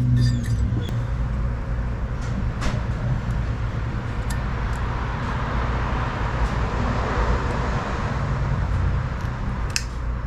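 Steady low hum and hiss of workshop background noise, with a few light clicks from small metal transmission parts being handled.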